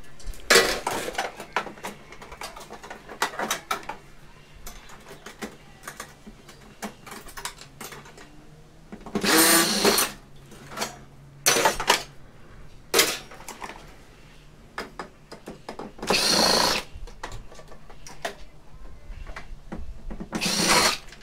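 Ryobi cordless impact driver backing out screws in about six short bursts, the first about nine seconds in. Between the bursts there are small clicks and knocks of metal and plastic parts being handled.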